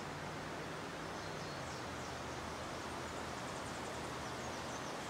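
Steady rushing of a creek in flood, running over its banks. Faint high bird chirps come through it now and then.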